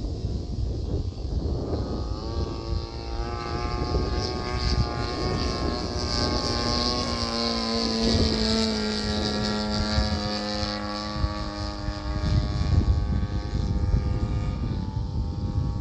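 Flex Innovations Mamba 70 radio-controlled model airplane flying past: its motor and propeller drone comes in about two seconds in, holds, then drops in pitch as the plane passes and fades near the end.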